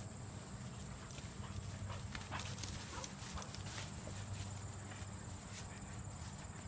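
Faint light footsteps and rustling in grass, over a steady low hum and a steady high-pitched whine.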